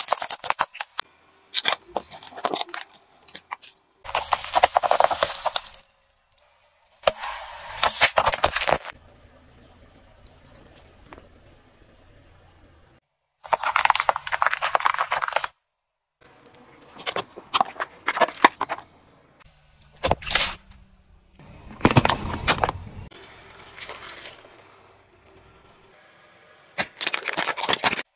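A car tyre crushing a series of objects on pavement: bursts of sharp cracks, snaps and crunches a second or two long, with short gaps of near silence between them. About fourteen seconds in, whole green bell peppers split and crunch under the tyre.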